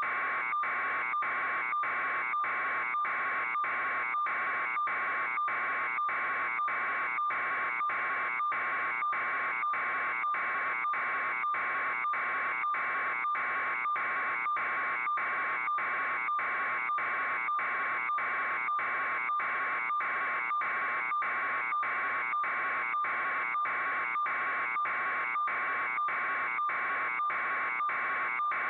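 A steady buzzing tone that pulses evenly about twice a second, unchanging in pitch and level.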